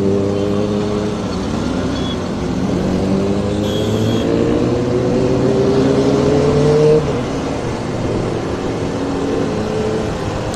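Motorcycle engine running under way over steady wind rush, its pitch climbing for several seconds as the bike accelerates, then dropping suddenly about seven seconds in as the rider shifts or rolls off the throttle.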